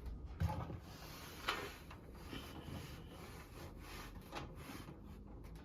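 Handling noise from a 20-inch metal box fan being turned around on its surface: rubbing and scraping, with a knock about half a second in and a sharper one about a second and a half in.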